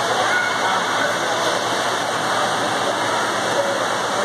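Steady, echoing din of an indoor swimming pool hall: a constant wash of water splashing and lapping, with no single event standing out.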